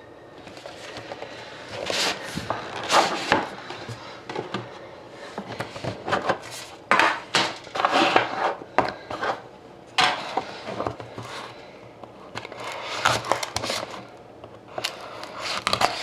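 Handling a sealed trading-card box and its packaging: irregular rustling, scraping and light knocks of cardboard and plastic wrap as it is opened.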